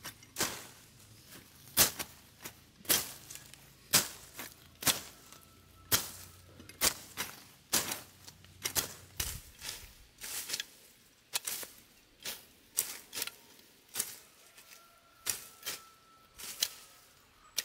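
Machete blades swishing and slicing through weeds and grass close to the ground. The cuts come in a steady, uneven series of sharp strokes, roughly one or two a second.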